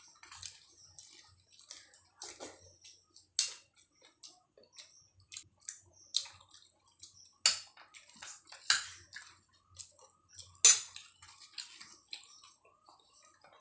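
Close-up eating sounds of two people eating luchi with curry by hand: wet chewing and lip-smacking, fingers tearing the fried bread, with a few sharper clicks scattered through.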